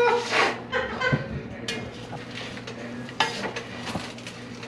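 Wooden spoon stirring a sticky mix of Rice Krispies cereal and melted marshmallow in a pot, with irregular scrapes and knocks of the spoon against the pan.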